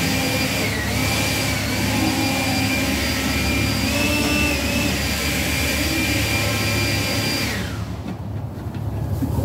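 A motor running with a steady high whine over a rushing hiss; it cuts off abruptly about seven and a half seconds in.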